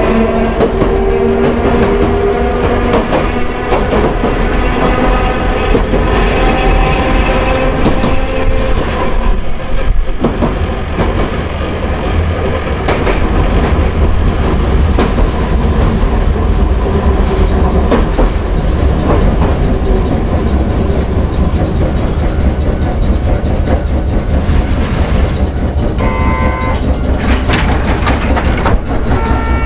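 Hankai Tramway Mo 161-class tram's nose-suspended (tsurikake) traction motors whining and rising slightly in pitch as it picks up speed, the whine dropping away about ten seconds in as it coasts on. Steady rumble and clatter of the wheels on the track, with two short pitched signals near the end.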